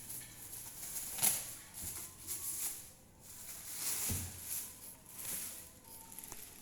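Handling noise from unboxing a loudspeaker: rustling with a sharp click about a second in and a low thump about four seconds in.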